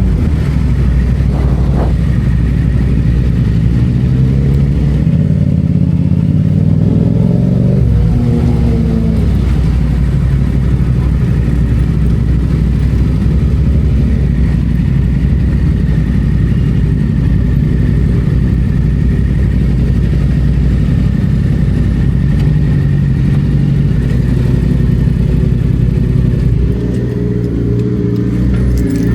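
Yamaha FZ-07's parallel-twin engine pulling under way, its pitch climbing and dropping back with upshifts in the first eight seconds, then holding steady at a cruise. The engine eases off slightly near the end.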